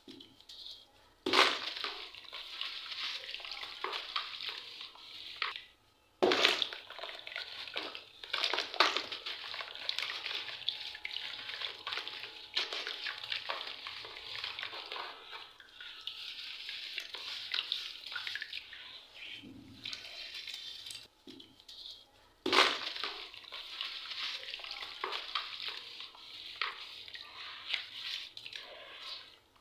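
Hands smashing and crumbling soaked charcoal bars in a basin of water. Sharp splashes come as chunks break and drop in, about a second in, around six seconds, near nine seconds and again past twenty-two seconds. Between them the water and grit slosh and crackle steadily as the pieces are worked and stirred.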